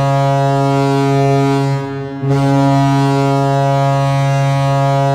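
Toronto Maple Leafs arena goal horn sounding its win blasts: a long, loud, low blast that breaks off a little under two seconds in, then a second blast starting about half a second later.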